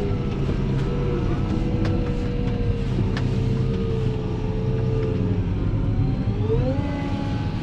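Fendt 724 Vario tractor's six-cylinder diesel engine and driveline running steadily while ploughing, heard from inside the cab. About six and a half seconds in, a whine rises in pitch and then holds at the higher note as the revs climb.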